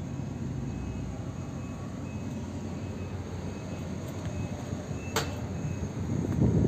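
Steady low rumble of yard background noise, with a single sharp click about five seconds in and gusts of wind on the microphone building near the end.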